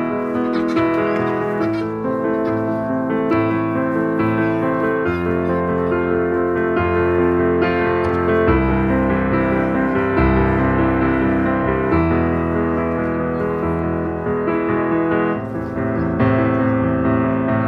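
Piano music playing steadily at a moderate pace, a run of sustained chords and notes.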